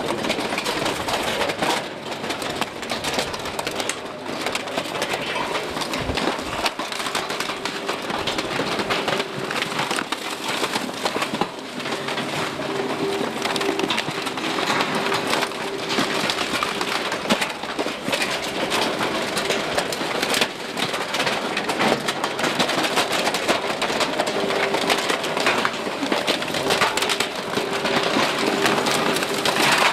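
Spiked compaction roller of a Bergmann Roll-Packer RPM 7700 rolling over mixed garbage in an open container, with continuous crackling and crunching as plastic and packaging are crushed, over a steady machine hum.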